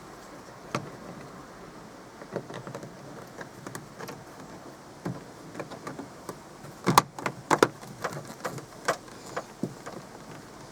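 Scattered clicks and knocks of a car's interior door trim panel being fitted back onto the door, its clips pressed home, with the loudest run of knocks about seven seconds in.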